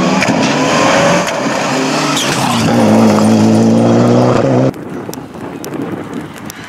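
Mitsubishi Lancer Evolution X rally car's turbocharged four-cylinder engine at full throttle as it passes close by, the pitch rising and falling through gear changes, with a brief high squeal about two seconds in. About two-thirds of the way through, the sound cuts suddenly to a fainter, distant rally car engine.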